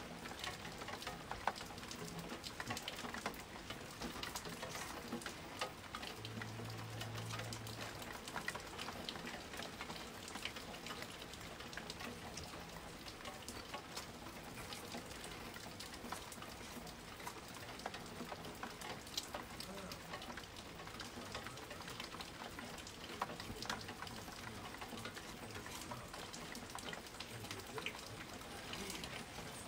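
Steady rain falling in a thunderstorm, a dense hiss of drops with many small sharp ticks.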